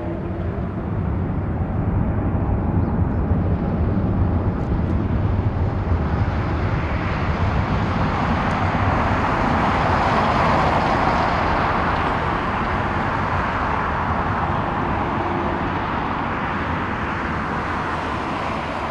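Boeing 777-200 twin jet engines at high thrust as the airliner rolls down the runway. The roar swells to its loudest about ten seconds in as the jet passes, then slowly fades as it moves away.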